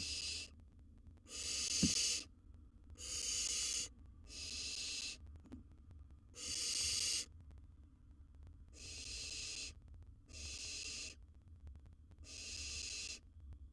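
Barn owl nestling giving its hissing, snore-like begging call, repeated about eight times. Each hiss lasts just under a second, with short gaps between.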